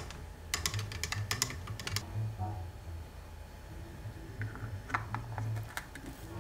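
A stirrer clicking rapidly against the plastic chamber of an AeroPress as the coffee is stirred, for about a second and a half starting shortly after the beginning; a few lighter plastic clicks follow near the end as the filter cap is fitted.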